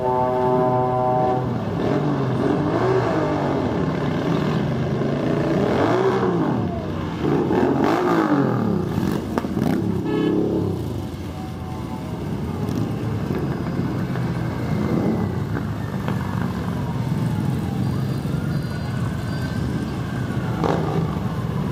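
A procession of motorcycles riding past, their engines revving and rising and falling in pitch as each one goes by. A steady horn sounds for about the first second and a half.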